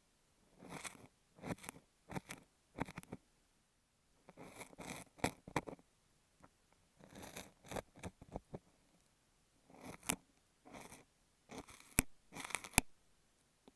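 Kinetic sand rubbed and pressed over an earphone microphone for ASMR ear-cleaning sounds. It makes scratchy, crunchy rustling in short bursts, about one every second, with a couple of sharp clicks near the end.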